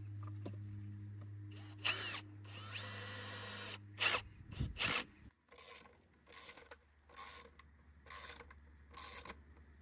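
Ryobi cordless drill running in short spurts as it drives screws into a wooden 4x4 post. About halfway through, it gives way to a hand ratchet wrench clicking in a steady, repeated rhythm as the screws are tightened.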